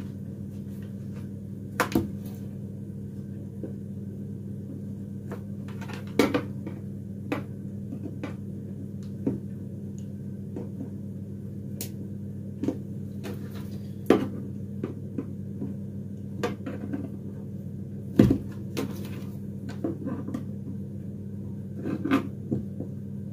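Scattered knocks and clicks as a sealed canister is handled and its stuck cap worked at, over a steady low hum.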